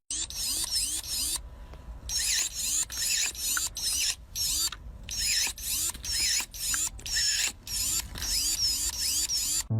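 A hand-worked mechanism going in quick repeated strokes, about two or three a second, each with a high squeak. It stops briefly a couple of times and then carries on.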